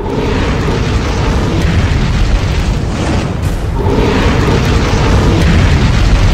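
Fire-blast sound effect: a loud, rushing rumble of flames that swells in two waves, thinning briefly about three and a half seconds in.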